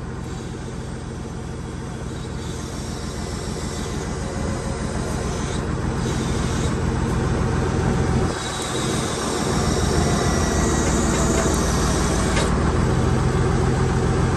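Recovery truck's diesel engine running under load to power its crane and winch as they lift a stuck excavator. The revs build gradually, dip briefly just past halfway, then hold steady and louder.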